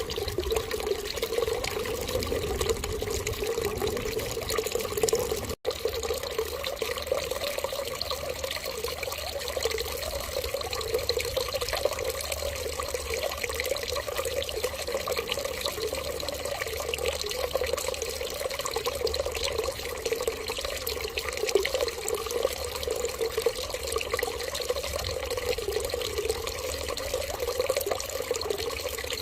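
Water running steadily and without change, with a momentary dropout about five and a half seconds in.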